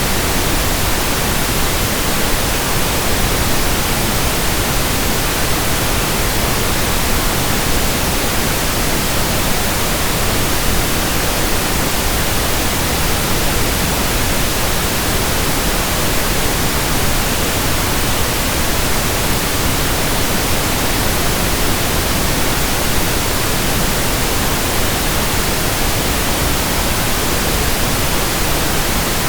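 Pink noise: a steady, even hiss that does not change.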